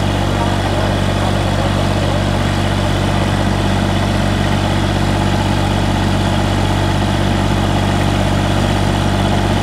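Diesel tractor engines running hard and steady under heavy load, two tractors hitched back to back and straining against each other in a tug-of-war pull. The engine note holds one pitch with no revving up or down.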